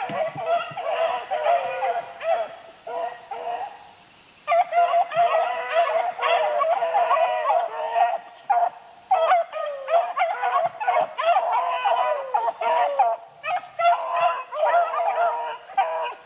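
A pack of rabbit-hunting dogs baying in chorus, several voices overlapping almost without a break, with a short lull about four seconds in. The baying is the sign that the dogs are on a rabbit's trail and running it.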